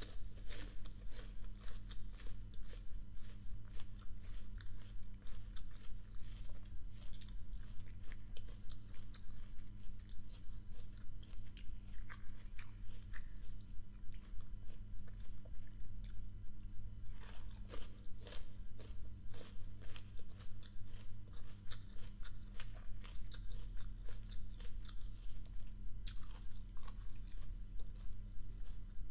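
A person chewing crisp apple pieces close to the microphone: wet crunching in a steady rhythm of about three chews a second, with louder clusters of crunches a little past halfway and again near the end. A steady low hum runs underneath.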